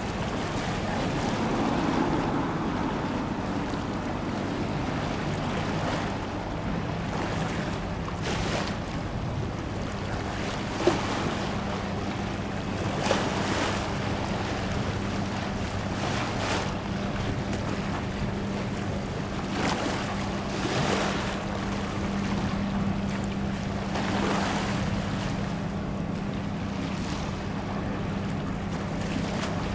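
Waterfront ambience: wind buffeting the microphone and water lapping, over a steady low hum. Two short clicks sound about 11 and 13 seconds in.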